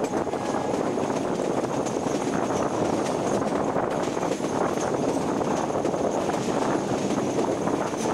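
Running noise of a metre-gauge passenger train, heard from an open window of a moving coach: a steady rolling rumble mixed with rushing air.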